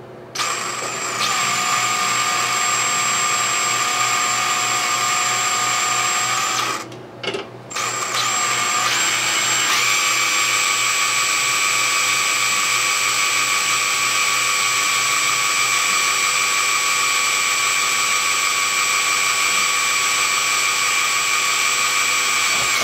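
DeWalt 18V cordless drill running steadily with a tiny 1/16-inch bit, drilling a hole through a small metal pawl pin. It stops briefly about seven seconds in, then starts again and runs on at a steady speed.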